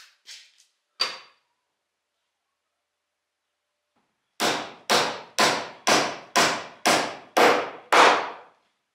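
Hammer driving a nail into a pressure-treated pine fence-rail board. One tap comes about a second in, then after a pause eight steady blows about two a second, getting slightly louder.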